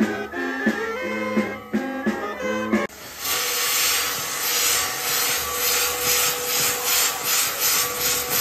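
Brass band music for about the first three seconds, cutting off abruptly. Then comes the loud rushing hiss of a pyrotechnic castle's spark-throwing fire wheels and fountains, pulsing about three times a second.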